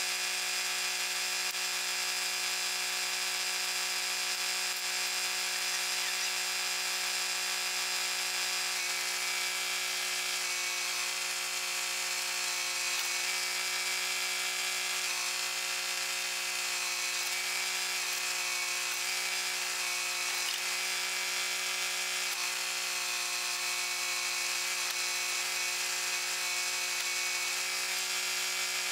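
Kubota tractor's diesel engine running steadily at an even pitch while it works the backhoe.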